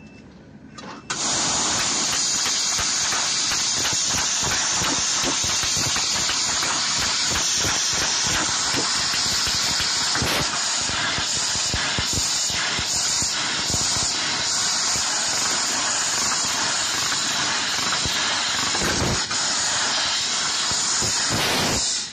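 Laser cutter cutting stainless steel sheet, its assist gas jetting from the cutting nozzle with a loud, steady hiss. It switches on suddenly about a second in and cuts off sharply at the end.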